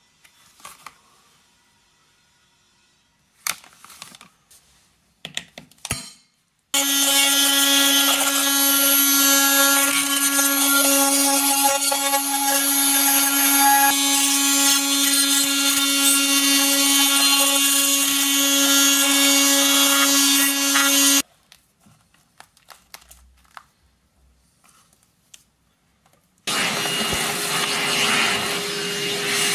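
Fein MultiMaster 700 oscillating multi-tool with a scraper blade runs steadily for about fifteen seconds, with a steady hum under loud buzzing, scraping old silicone sealant out of a joint. After a pause with a few handling clicks, a vacuum cleaner runs near the end.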